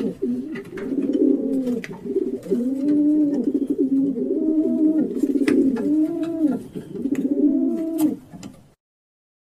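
Wood pigeon cooing, a long run of low, repeated coos roughly one a second, with a few sharp clicks; the sound cuts off abruptly near the end.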